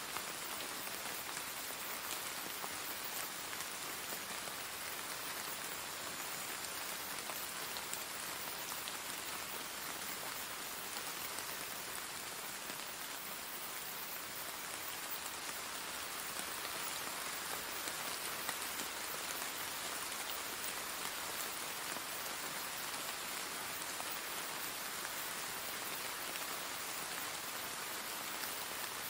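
Steady rain, an even hiss of falling drops that holds at one level throughout.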